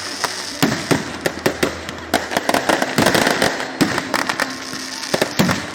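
Fireworks going off: a rapid, irregular run of sharp bangs and pops over a steady crackling hiss.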